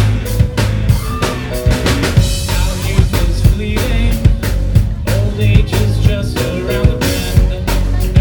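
Live rock band playing a song, a full drum kit with bass drum and snare keeping a steady beat under the rest of the band.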